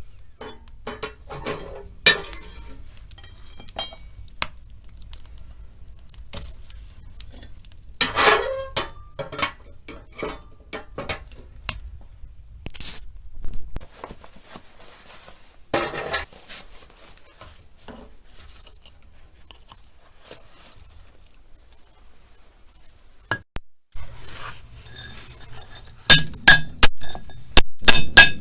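Scattered clinks and knocks of small hard objects being handled, louder and more frequent near the end, with a faint low hum through the first half.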